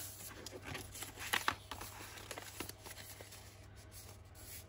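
Brown kraft paper being folded and handled: soft rustles and light crinkles, scattered and thinning out after about two seconds.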